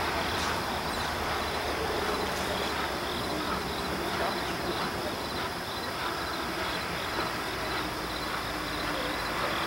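Insects chirping in an even, repeating rhythm over a steady background hiss.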